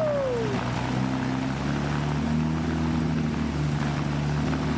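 Restored Austin-Healey engine running steadily on its first run after some 30 years laid up, its low tone shifting slightly every second or so. A falling whistle-like tone sounds at the very start.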